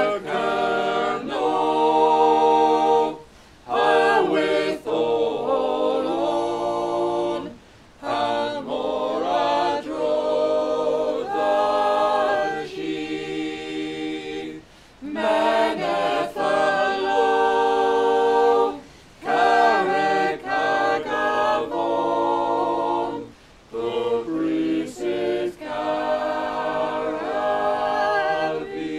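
A choir singing a cappella, in phrases a few seconds long with short pauses between them.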